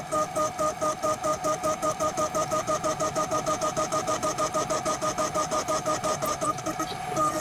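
End mill on a DMC2 Mini desktop CNC mill cutting 304 stainless steel: a pulsing cutting tone that swells and fades about seven times a second as the cutter engages the metal on each pass of its toolpath.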